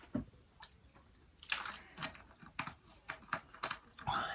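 Close-up chewing and wet mouth sounds of someone eating, coming as a few short, separate smacks and clicks.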